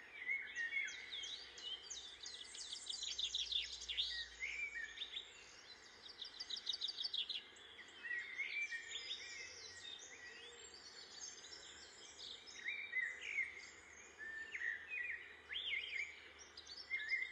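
Several birds chirping and calling, with quick runs of high repeated notes and short whistles, over faint outdoor ambience.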